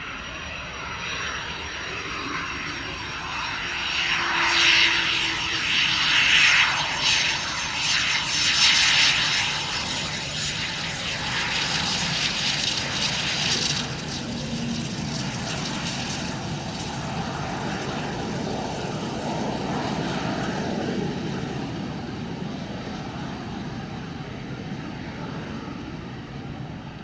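Eurofighter Typhoon's twin EJ200 turbofan engines running as the jet taxis past close by. The sound swells to its loudest rough, high rushing from about four to fourteen seconds in. Then the high part cuts off abruptly, leaving a lower, steadier engine noise.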